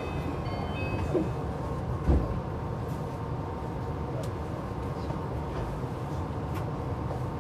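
Tama Monorail train running: a steady low rumble, with a few short high tones at the start and one louder thump about two seconds in.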